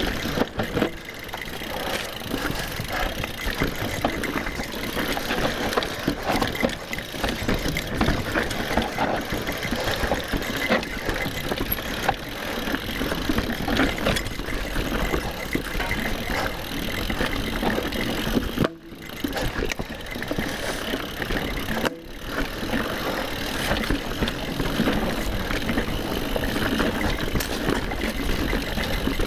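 Mountain bike being ridden over rough trail: a continuous rumble and rattle of tyres and bike over dirt and roots, with two short sharp drops in the noise about two-thirds of the way through.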